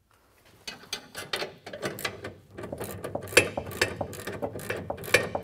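Hand socket ratchet clicking as it runs down a bolt clamping a hitch cross member to its center section, while a second wrench holds the nut. The clicks start about a second in, sparse at first, and come quick and steady from about halfway.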